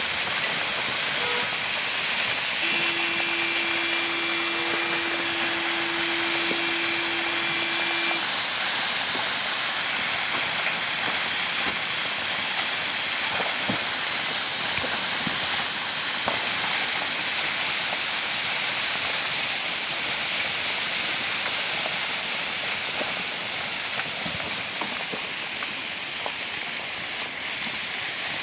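Steady hiss of heavy rain and water running down a rocky mountainside. About three seconds in, a steady tone sounds for about five seconds.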